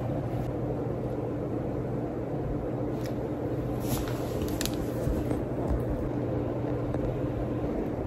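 Steady low hum and hiss of room background noise, with a held low tone underneath, and a few faint clicks of the phone being handled about three to five seconds in.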